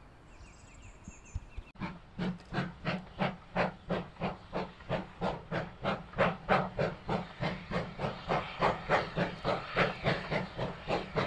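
GWR Saint class 4-6-0 steam locomotive No. 2999 'Lady of Legend', a two-cylinder engine, passing under steam, its chimney exhaust beating sharply and evenly at about three beats a second. The beats start suddenly about two seconds in, after a faint quiet start.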